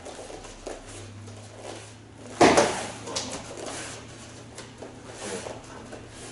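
Punches in boxing gloves landing on spherical padded 'Doraemon gloves' held as mitts. One loud smacking hit about two and a half seconds in, a lighter hit just after it and another about a second later, with quieter knocks in between.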